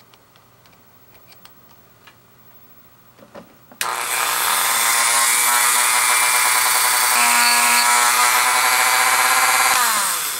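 Flexible-shaft rotary tool reaming a screw hole in a plastic case: it starts abruptly a little under four seconds in, runs with a steady high-pitched whine that shifts slightly in pitch midway, then winds down near the end. Light handling clicks come before it starts.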